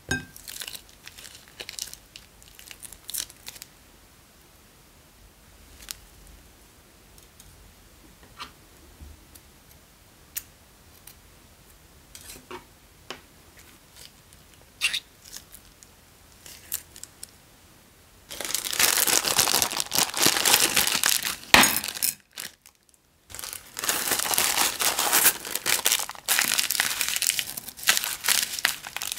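Thin plastic bags of slime being squeezed and handled. For the first part there are only scattered soft clicks and small sticky drips as slime is pressed out of a bag. About two-thirds of the way through, loud close-up crinkling of the plastic takes over and goes on with one brief pause.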